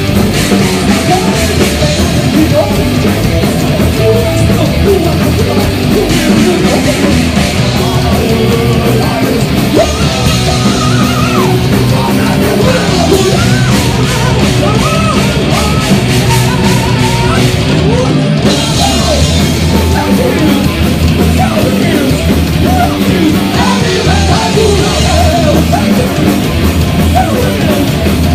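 A heavy metal band playing live at full volume: distorted electric guitars, bass and drums, with a short break in the music near the middle.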